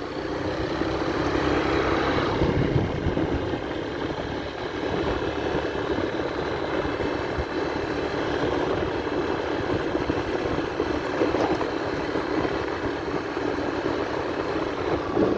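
Motor scooter being ridden along a road: its engine running steadily under an even rush of road and wind noise.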